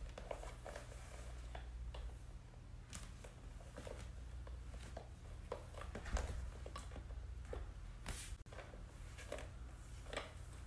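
A small cream handbag being handled: scattered soft rustles, creaks and light taps as the bag, its long straps and its hang tag are moved about, over a low steady hum.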